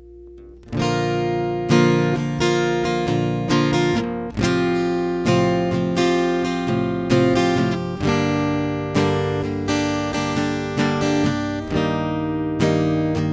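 Acoustic guitar strumming chords, starting about a second in, heard as a direct line signal through a FET preamp pedal rather than through a microphone.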